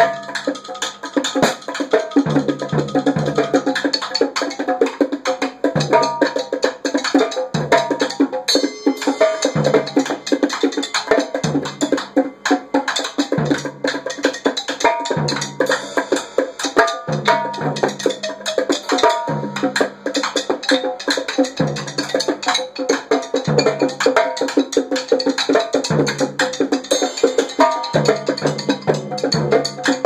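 Improvised percussion jam: a trap drum kit, goat-skin bongos and a gourdaphone playing together in dense, fast hits, with a low pitched figure that comes back about every two seconds.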